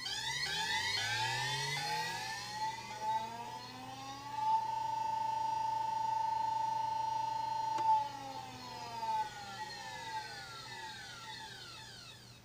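Induction motor fed by a 1989 Danfoss VLT 1000 PWM inverter drive, whining with the switching carrier. Sweeping tones climb in steps as the drive ramps the motor up, hold one steady tone for a few seconds, then sweep back down as it ramps down. The stepped jumps are the carrier frequency being lowered as the output frequency rises, to keep heat in the output transistors low. There is a single click about eight seconds in.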